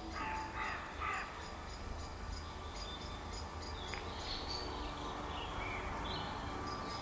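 Three harsh, croaking bird calls in the first second or so, then faint, evenly repeated high chirps and a few short bird calls over a steady low rumble.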